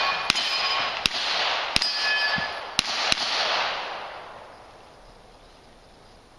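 Five gunshots, most about three-quarters of a second apart, echoing off the surroundings. After two of them comes the metallic ringing of a steel target being hit.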